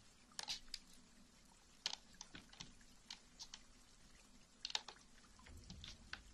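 Near silence with faint, irregular small clicks and taps, about a dozen scattered through, over a low steady room hum.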